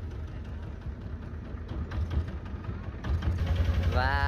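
Small river boat's engine running with a steady low throb, getting louder about three seconds in. A voice starts right at the end.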